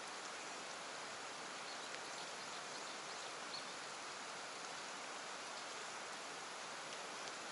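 Steady soft hiss of outdoor water noise, with a few faint ticks scattered through it.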